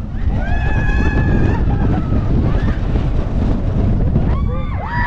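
Wind buffeting the microphone on a roller coaster in motion, with riders screaming: one long held scream about half a second in, and more rising and falling screams near the end.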